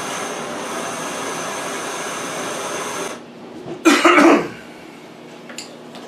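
Handheld gas torch flame hissing steadily as it heats the solder joint, cut off abruptly about three seconds in. About a second later a person coughs once, loudly.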